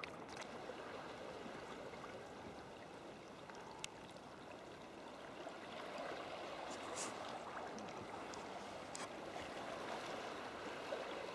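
Water rushing and gurgling around a sea kayak as it is paddled through a strong tidal stream that is holding the boat back, with a few faint clicks.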